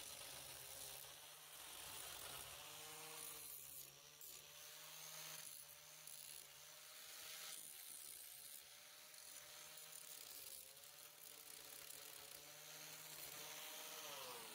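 Faint whine of an electric angle grinder with a flap disc, grinding rust off an iron railing; its pitch dips several times and falls away near the end as the grinder winds down.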